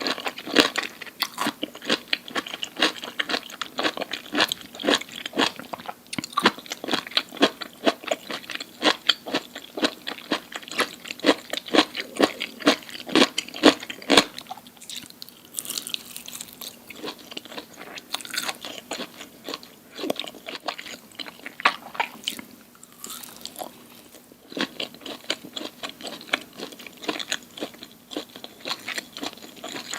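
Close-miked ASMR eating: someone bites and chews crunchy food, a dense run of sharp crunches for about the first half, a quieter stretch in the middle, then crunching again towards the end.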